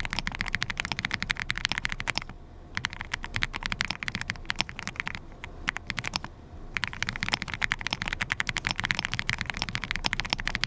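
Monstargear Nemo67 custom mechanical keyboard typed on quickly: a dense run of key clacks, broken by two short pauses, one about two seconds in and a longer one around five to six seconds in.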